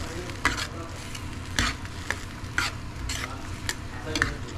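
A utensil stirring a tomato, onion and garlic sauté in a metal pan, scraping the pan in quick strokes about every half second over a steady sizzle from the pan.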